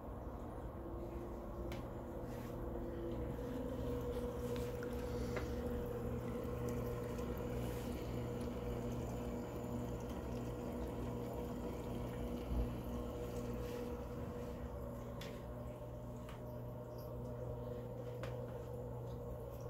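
Reef aquarium water running: a steady trickle and splash of water circulating through a JBJ Flatpanel 65-gallon all-in-one tank, over a steady low hum.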